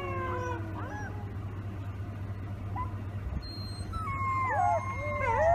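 Several wolf pups howling together in wavering, overlapping voices; the chorus trails off in the first second, goes quiet for a few seconds, and starts up again about four seconds in. A steady low hum runs underneath.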